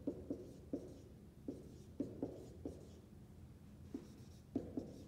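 Dry-erase marker writing on a whiteboard: an irregular run of short strokes and taps as letters and a circle are drawn.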